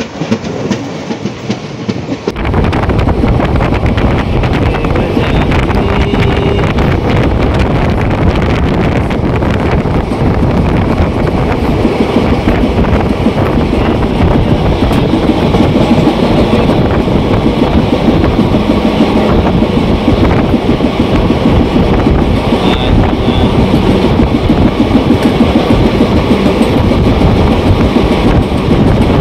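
Passenger coach of a moving express train: a loud steady rumble of wheels on the rails, with the clickety-clack of the rail joints. The sound starts abruptly about two seconds in.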